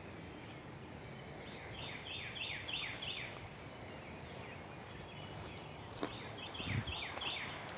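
A songbird sings two phrases, each a quick run of about six downslurred notes, over a faint steady outdoor hiss. There is a single sharp click near the second phrase.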